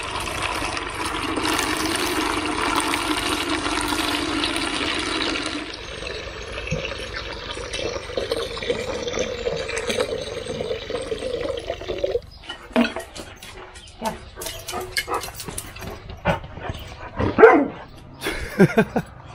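A dog barking twice near the end, the loudest sounds here, after a steady rushing noise in the first several seconds and scattered clicks.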